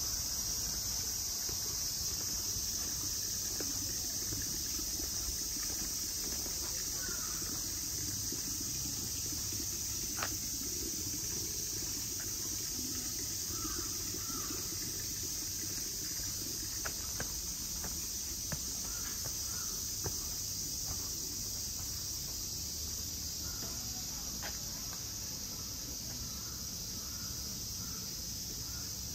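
Steady, high-pitched insect chirring, with a few faint clicks now and then.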